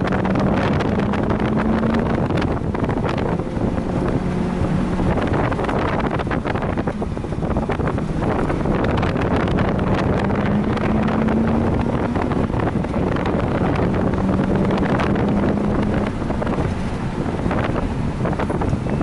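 Heavy wind buffeting on the microphone, with a Mazda RX-8's rotary engine running faintly underneath, its pitch rising a little now and then.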